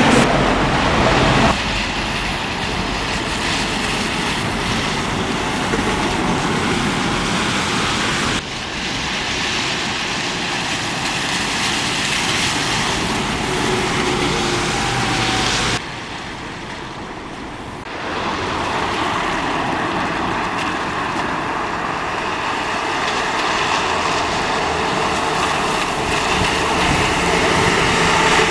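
City street traffic noise of passing buses and trams, with faint gliding motor tones. The sound changes abruptly several times, and is quieter and duller for a couple of seconds about two-thirds of the way through.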